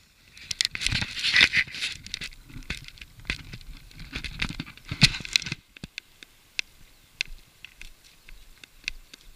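Dry crop stubble and straw crackling and snapping as it is crossed, dense at first, then thinning to scattered clicks about five and a half seconds in.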